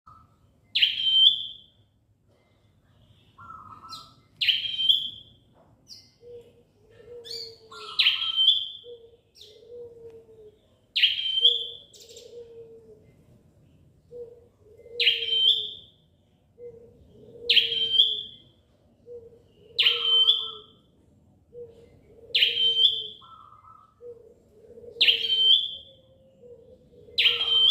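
Bar-winged prinia (Prinia familiaris) giving loud, shrill calls, a sharp high note followed by a lower note, repeated every two to three seconds.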